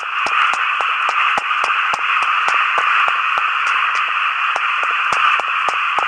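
Radio static: a steady, thin mid-pitched hiss with frequent crackling clicks.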